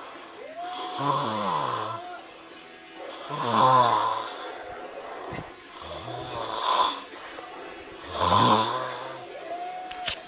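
A sleeping man snoring heavily: four long snores, one about every two and a half seconds, each with a deep pitch that wavers and steps.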